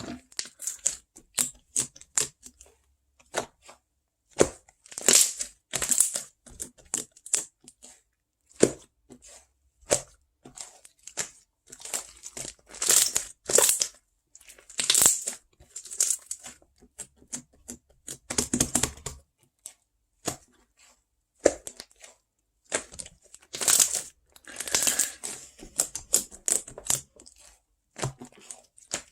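Crinkling and crushing of something being handled, in short irregular bursts of crackle separated by brief quiet gaps.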